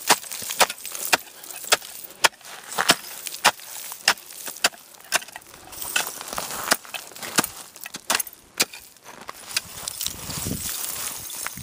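Ice chisel, a long wooden-handled pole with a steel tip, striking river ice in a steady rhythm of sharp blows, about two a second, chipping open a fishing hole. The blows stop about nine seconds in.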